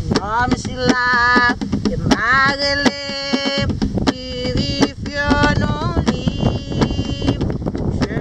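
A young woman singing unaccompanied, with gliding and held notes, over a steady beat of sharp knocks.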